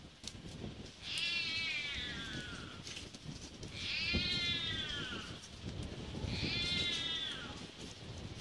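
A kitten mewing, three long, high calls that each fall in pitch, a second or so apart.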